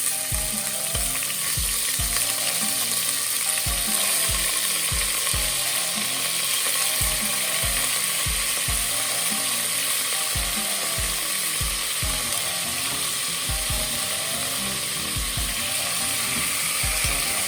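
Minced lamb frying in hot oil on high heat: a steady, loud sizzle. Soft background music runs underneath.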